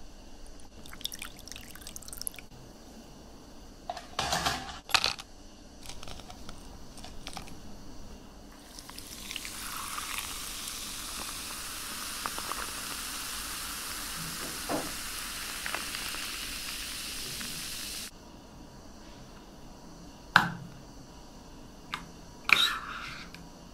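Sparkling water poured over ice and lime slices in a plastic cup, hissing and fizzing steadily for about nine seconds before cutting off suddenly. A few sharp knocks come before the pour. Sharp plastic clicks near the end come as a straw goes through the cup's plastic lid.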